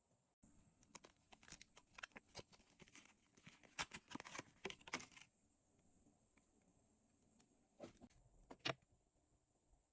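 Packaging being torn open and crinkled by hand: a quick run of crackling and tearing for about five seconds, then two louder crackles near the end.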